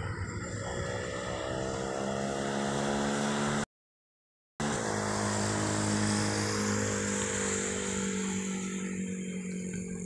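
A motor vehicle engine running steadily, its pitch rising a little in the first couple of seconds and then holding. The sound drops out completely for about a second partway through, then returns.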